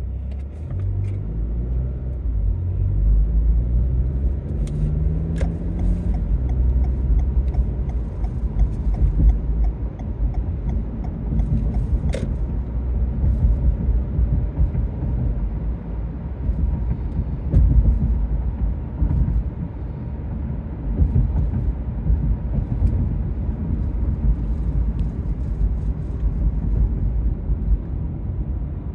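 Car interior noise as it pulls away and drives at road speed. The engine's pitch climbs over the first several seconds as it accelerates, then settles into a steady low rumble of engine and tyres.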